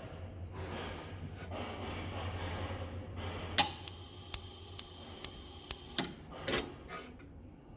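Gas burner running with a rushing hiss, then the auto-ignition electrode sparking with seven sharp clicks, about two a second, followed by a short burst of rushing noise.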